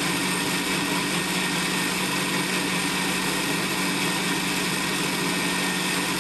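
Electric countertop blender running steadily at full speed, blending milk, banana and yogurt into a lassi, with a constant motor hum.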